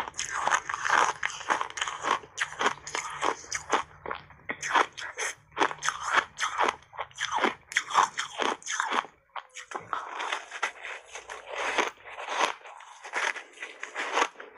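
Block ice coated in matcha tea powder being bitten and chewed, a fast run of sharp cracks and crunches with a short break about two-thirds of the way through.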